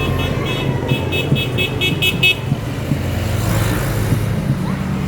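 Basuri telolet horn sounding a fast run of short, evenly repeated toots, about six a second, that stops a little over two seconds in. A steady vehicle engine rumble runs underneath.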